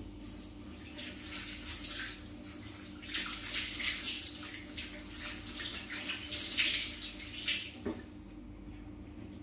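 Kitchen sink tap running, with water splashing over hands being rinsed under the stream. The flow stops about eight seconds in.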